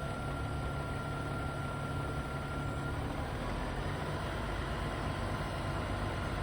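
Engine idling steadily with a constant low rumble, joined by a faint high whine that drops to a slightly lower pitch about three seconds in.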